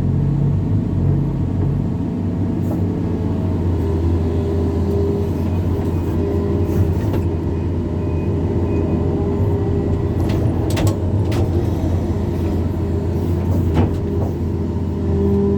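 Backhoe excavator's diesel engine running steadily as it works, with a few sharp knocks about eleven and fourteen seconds in.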